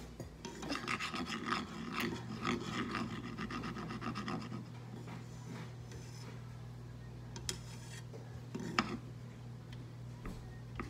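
A slotted spatula scraping and rubbing across a frying pan, spreading melted butter, with a few sharper taps later on. A steady low hum starts about two seconds in.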